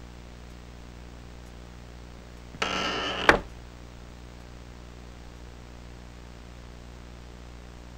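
Steady low hum, with one short creak about two and a half seconds in that ends in a sharp click.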